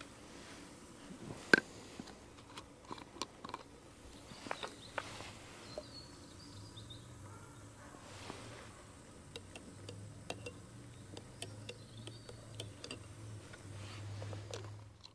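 Light clicks and taps of a metal spoon, mug and plastic milk bottle being handled while a drink is made at a camp stove, with one sharper click about a second and a half in.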